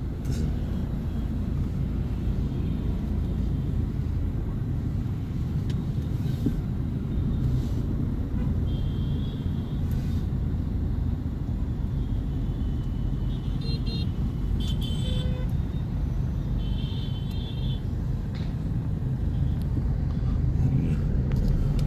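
Congested road traffic: a steady low rumble of engines and tyres, with a few short car horn beeps from surrounding vehicles about halfway through.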